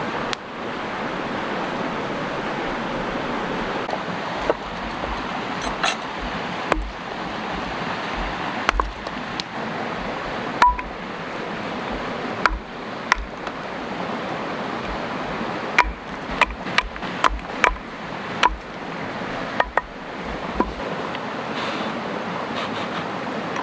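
Creek water rushing steadily, with scattered sharp clicks and pops over it, most of them between about four and twenty-one seconds in.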